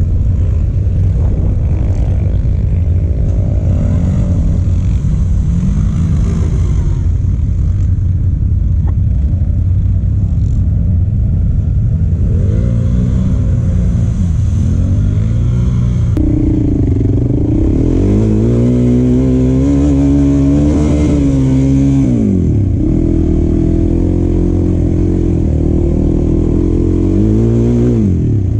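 Quad bike engines: a steady low idle throughout, with engine revs rising and falling several times in the second half, the longest held high in the middle and another near the end.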